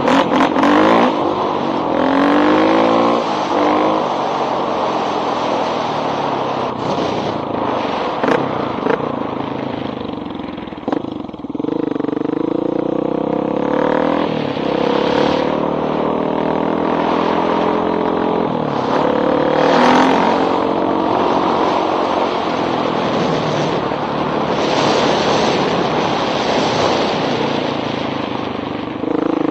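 1985 Honda XR350R's single-cylinder four-stroke engine through a loud exhaust pipe, under way: it revs up and eases off several times as the bike accelerates and shifts, easing down about ten seconds in before pulling away again.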